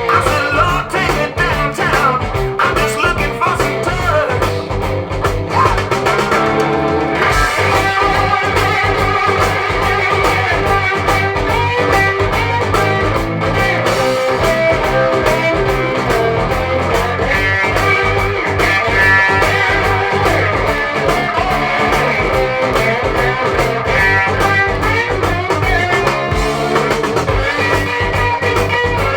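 Blues-rock recording with electric guitar over a steady beat.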